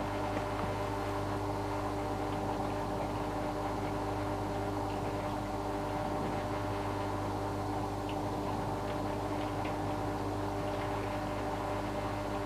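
Cookology CMDW2GD mini countertop dishwasher running mid-wash: a steady motor hum from its wash pump with water spraying and sloshing inside, and a few faint ticks.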